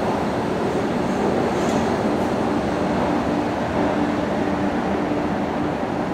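Docklands Light Railway train running past along a station platform: a steady hum over the rumble of wheels on rail.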